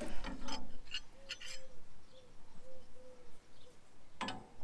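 Open-ended steel spanner clinking against the clutch linkage of a Ferguson TE20 tractor as it is worked onto the pinch bolt: a quick run of light metal clicks in the first second and a half, then one sharper clink near the end.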